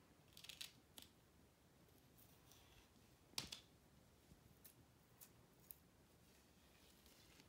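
Faint, crisp snaps and small tearing clicks of a green pumpkin leaf stalk as its fibrous strings are peeled off by hand. The sharpest snap comes about three and a half seconds in.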